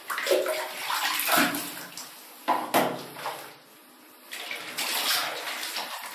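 Water splashing and trickling as a cloth is dipped into a small plastic bucket of water and lifted out dripping, in uneven bursts with a short lull a little past halfway.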